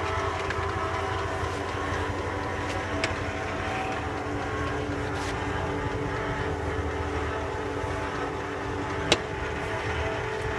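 A Carroll-Jamieson 16" x 60" engine lathe running steadily, its headstock gearing giving a steady hum and whine. There is a single sharp click about nine seconds in.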